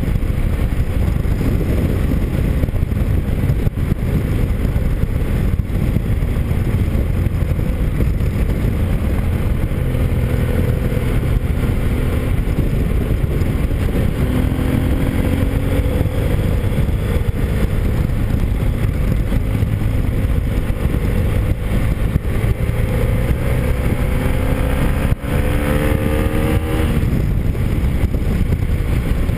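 Motorcycle on the move on a wet road: heavy wind rush on the microphone over the engine, whose note rises as the bike accelerates about halfway through and again near the end.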